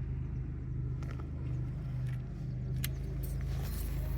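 An engine running steadily with an even low hum, with a few faint clicks over it.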